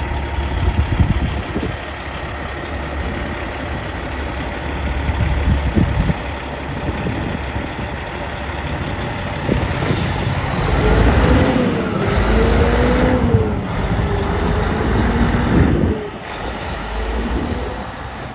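Semi trucks' diesel engines running as they pull out onto the road, with a steady low rumble. A motorcycle passes about halfway through, and then a pitched tone that wavers up and down comes in for several seconds.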